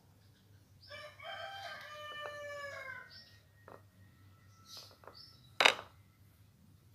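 A rooster crowing: one long call of about two seconds. Near the end comes a single short, sharp click, the loudest sound.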